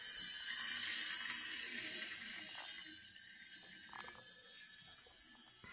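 N scale diesel model locomotive running along the track with its train, a soft whirring hiss from the motor and wheels that fades over the first three seconds, with a couple of faint clicks.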